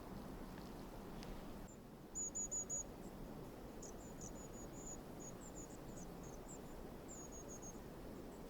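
Small songbird giving high, thin calls: a quick run of four notes about two seconds in, then scattered short chirps, over faint steady forest background.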